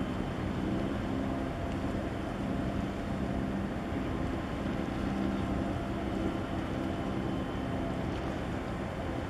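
Low engine hum of a ship under way, a few steady low tones that swell and fade, over wind noise on the microphone.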